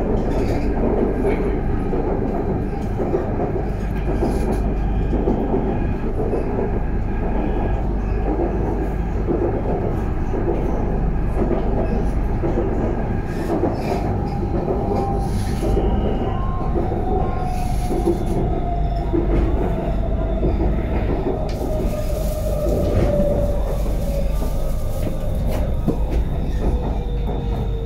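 Elevated metro train running, heard from inside the passenger car: a steady rumble of wheels on the track, with a motor whine that falls steadily in pitch over the second half as the train slows for a station.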